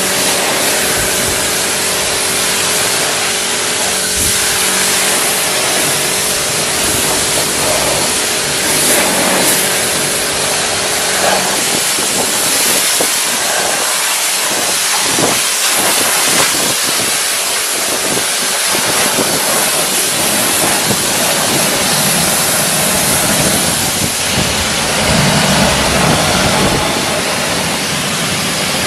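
Pressure washer spraying water: a loud, steady hiss of the jet, with a steady machine hum beneath it for about the first ten seconds.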